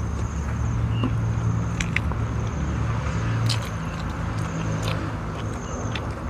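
A motor engine drones steadily at a low pitch and eases off near the end. Small clicks and smacks of eating by hand sound over it.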